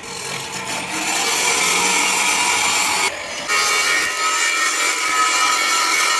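Power tool grinding steel: a steady, loud rasping hiss with a high whine, broken off briefly about three seconds in.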